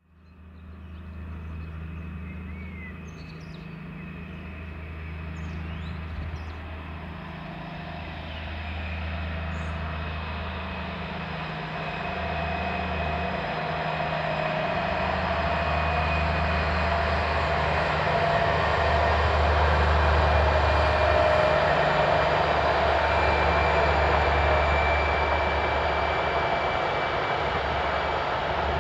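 A pair of DB Class 218 diesel-hydraulic locomotives hauling a double-deck passenger train, their engines running with a deep, uneven low throb. The sound grows steadily louder as the train approaches, then holds level.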